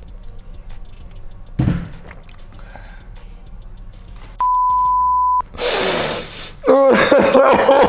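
A steady edited-in censor bleep, one pure tone about a second long that starts and stops sharply about halfway through. It is preceded by a single thud, likely a shot glass set down on the bar, and followed near the end by a noisy burst and loud strained vocal sounds.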